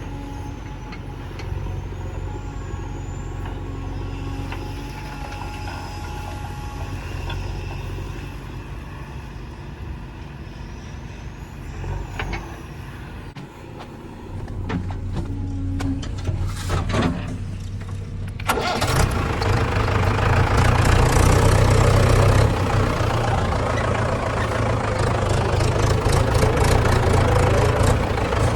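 Heavy diesel engine of earthmoving machinery running steadily, dipping briefly about halfway through. About two-thirds of the way in it suddenly gets much louder and fuller, as when the engine is revved to work.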